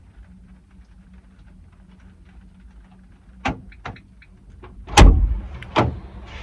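Van door being unlatched and opened: a few sharp latch clicks, then a loud clunk about five seconds in and a second knock just after, with rain hiss coming in as the door opens.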